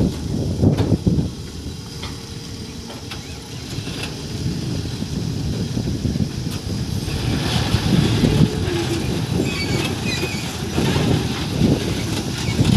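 Backhoe loader's diesel engine running and rising and falling under load, with a few thumps in the first second.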